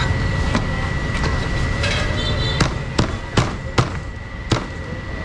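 Cleaver chopping roast meat on a cutting board: about six sharp chops, roughly two a second, starting about halfway in. Underneath is a steady market din with a thin, steady high whine.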